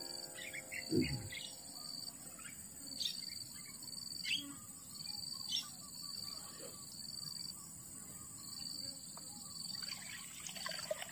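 Tropical forest ambience: insects droning steadily, with a high note pulsing over and over. Short bird chirps come through a few times.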